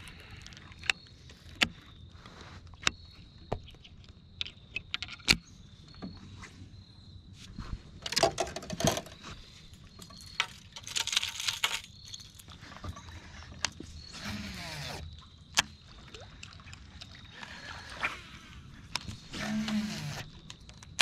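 Fishing tackle being handled in a small boat: scattered sharp clicks and knocks, with several short whooshing bursts, over a faint high steady tone that comes and goes.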